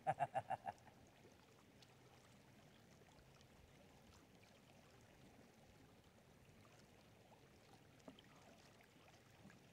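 A man's short laugh at the very start, then the faint, steady wash of river water as a gold pan is dipped and swirled in the shallows.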